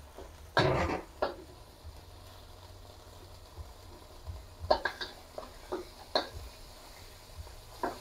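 Metal spatula scraping and clinking against a stainless-steel wok while stirring curry paste and palm sugar. There is a loud scrape about half a second in, then a run of sharp clinks around five to six seconds.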